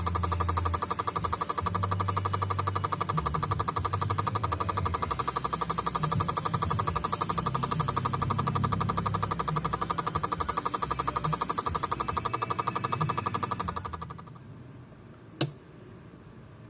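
Rapid, even mechanical clicking over a steady hum as the Nissan GA15 engine-control setup is cranked, running for about fourteen seconds and then cutting off abruptly. A single sharp click follows about a second later.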